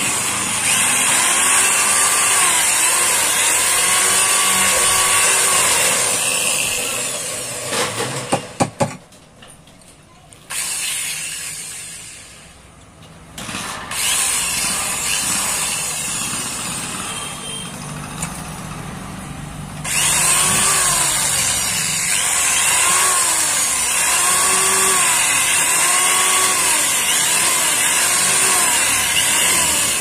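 Electric hand drill running, drilling out an aluminium rivet in a mixer-grinder motor's end housing, its pitch rising and falling every second or so. It stops about eight seconds in after a few sharp clicks, and drills again from about twenty seconds in.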